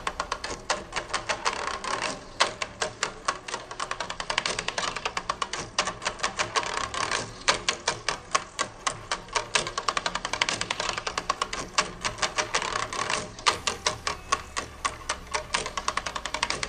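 Rapid, typewriter-like clicking from a homemade flasher drum turning: its copper wire contacts ticking over the foil strips and edges on the rotating plastic drum as they switch the lights.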